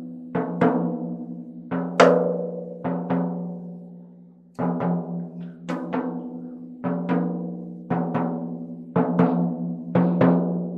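Drumstick striking the freshly fitted Evans G2 coated batter head of a 16-inch Pearl floor tom, mostly two strokes at a time about once a second, each note ringing on at a steady pitch and slowly dying away; the strongest stroke comes about two seconds in. The head is being tapped around its edge to bring it in tune with itself.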